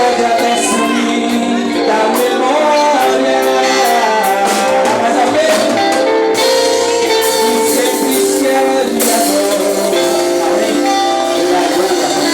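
Worship song: singing over instrumental accompaniment, continuing steadily at full level.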